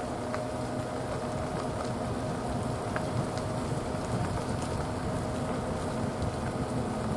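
Pickup truck rolling slowly along a campground road, heard from inside the cab: a steady low engine and tyre noise with a faint constant hum and a few small ticks.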